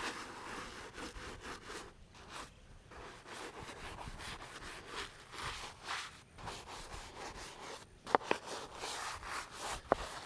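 Soft-bristled brush scrubbing the polished stone face of a headstone that has been pre-treated with headstone cleaner, in repeated rubbing strokes. Two sharp clicks stand out near the end.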